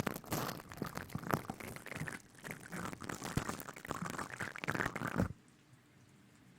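Close-up ASMR rustling and crinkling right at the microphone, a dense crackle of small clicks that cuts off suddenly about five seconds in.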